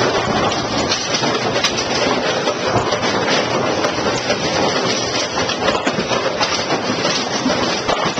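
A row of AMF 82-70 automatic pinsetters running: a loud, steady mechanical clatter full of small knocks and rattles.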